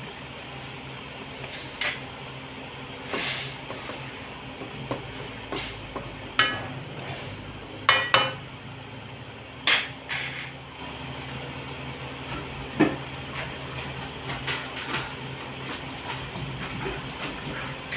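Metal spatula knocking and scraping against an aluminium wok while stirring yardlong beans in simmering broth: about a dozen sharp clacks, the loudest a pair about eight seconds in, over a steady low hum.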